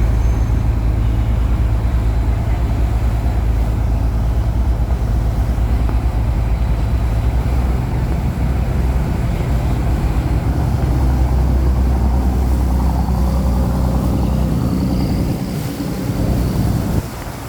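A boat's engine running steadily with a deep, low hum, easing off slightly near the end.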